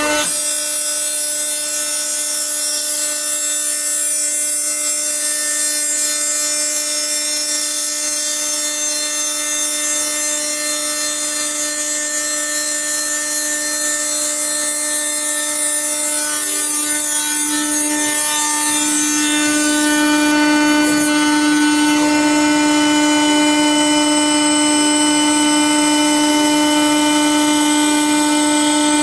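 CNC router milling out a flat part from a sheet: the spindle runs with a steady whine of several held tones over the hiss of the cutter in the material. About two-thirds of the way through the sound grows louder and the tones stronger.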